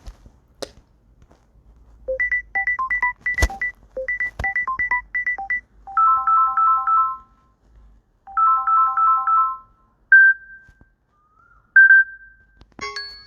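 Samsung Galaxy Note 10 playing its built-in ringtone and notification tones one after another: first a quick run of short, bright electronic beeps, then a three-note pattern played twice, then two single chimes that each ring out and fade. A few sharp clicks come in between, and a new tone starts near the end.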